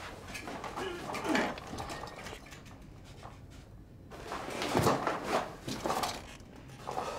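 Irregular knocks, scuffs and rustles of a person thrashing about and clambering over an office desk and chair, with the loudest bumps just under five seconds in and near the end.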